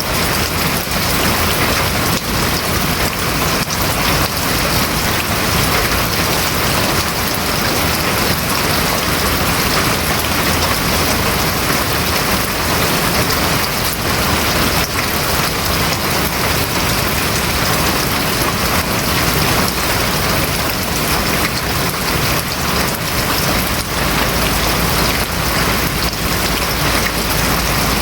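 Steady heavy rain drumming on a house roof, a dense patter of drops at an even level. A low rumble comes in near the end.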